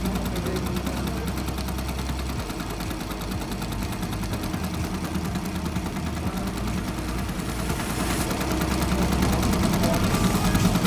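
Computerized embroidery machine stitching a design, running steadily with a fast, even clatter of needle strokes that grows a little louder near the end.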